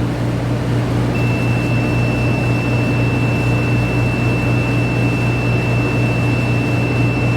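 Steady machine hum, with a thin, steady high-pitched tone that comes in about a second in and holds.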